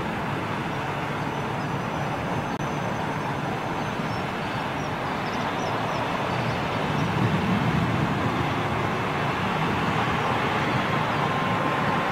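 Boeing 777's twin jet engines at takeoff thrust as it climbs out, a steady roar that grows louder over the second half as the airliner comes toward and over the listener.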